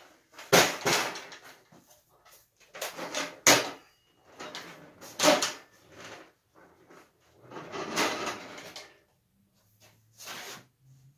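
Metal clanks, knocks and rattles from a folding steel-tube lathe stand being swung open and locked, bringing a Craftsman Model 103 benchtop lathe level into working position. There are about five loud knocks, some followed by a second of rattling or scraping.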